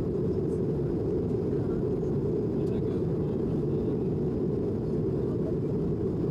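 Steady cabin noise of an Airbus A220 airliner: a low, even rush of airflow and its Pratt & Whitney geared turbofan engines, unchanging throughout.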